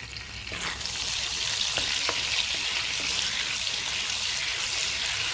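Butter sizzling as it melts in hot oil in a frying pan, a steady hiss that swells up about half a second in. There are a couple of faint taps in the middle.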